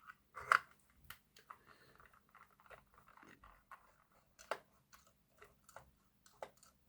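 Small screwdriver undoing the body-fixing screws on the underside of an OO gauge model locomotive: faint, irregular light clicks and scrapes, the loudest about half a second in.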